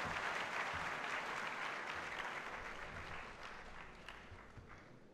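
Large audience applauding, the clapping fading away gradually until it has nearly died out near the end.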